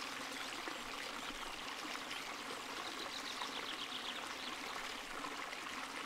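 Steady running-water ambience, an even hiss like a flowing stream, with no other clear event.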